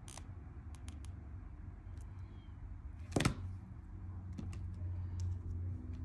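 Small clicks of jewellery pliers and metal jump rings being handled while a jump ring is closed through rubber O-rings, with one louder sharp clack about three seconds in, over a low steady hum.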